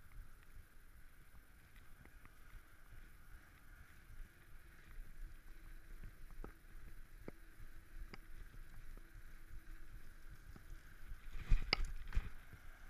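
Muffled, low rumble of a mountain bike rolling along paving, with a few light clicks and, near the end, a burst of loud knocks as the bike jolts over a bump.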